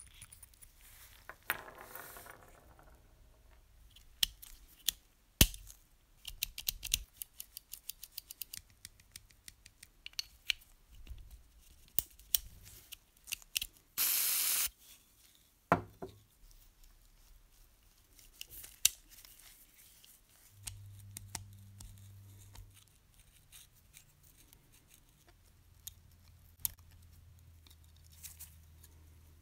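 Small metal clicks and taps from handling the parts of a clockwork toy locomotive's mechanism, with a fast run of clicks about six to nine seconds in. About fourteen seconds in, a short hiss of spray lubricant shot into the clockwork gears.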